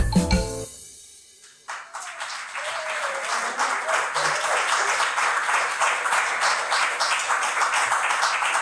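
A marimba finishes its last notes, which ring out and fade. About a second and a half later an audience breaks into steady applause that carries on.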